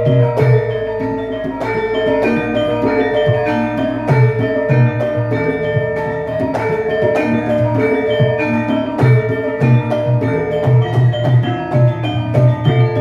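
Javanese gamelan ensemble playing a gending: bronze metallophones struck in a steady, interlocking rhythm, their notes ringing on, over regular low beats.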